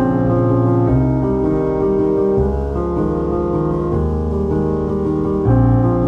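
Background piano music: slow, sustained chords that change every second or two.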